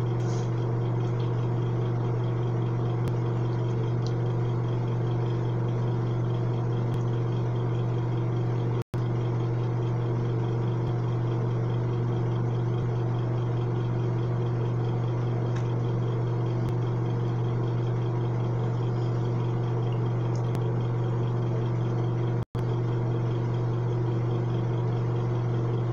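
Steady low hum, cutting out for an instant twice.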